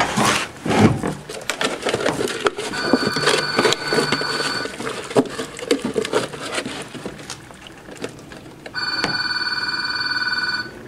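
A telephone rings twice with a trilling electronic ring, each ring about two seconds long: an incoming call. Rustling and clicks come from the latex mold and plastic sheeting being handled, loudest in the first second.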